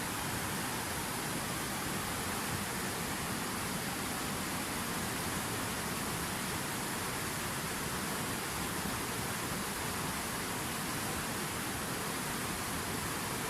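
Water falling from a fountain's cascade, a steady, even rush of splashing water with no change.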